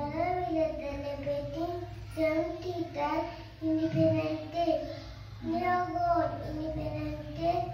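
A young boy singing solo into a handheld microphone in short phrases of held notes.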